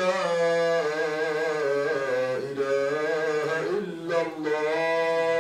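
A man chanting the adhan, the Islamic call to prayer, in long ornamented notes that waver and turn in pitch. About four seconds in there is a short breath, then a steady held note.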